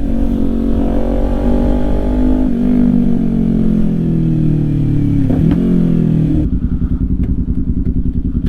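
Motorcycle engine on the move, its pitch falling steadily as the bike slows, with a step about two and a half seconds in. About six and a half seconds in it changes suddenly to a low, even, pulsing idle.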